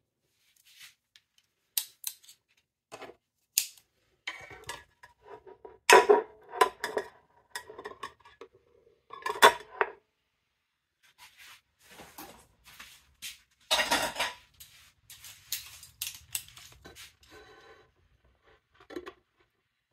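Metal kitchen utensils (a spoon, a fork and kitchen tongs) clinking and scraping against a slate board and a metal muffin tin, in scattered knocks with louder clatters about six, nine and a half and fourteen seconds in.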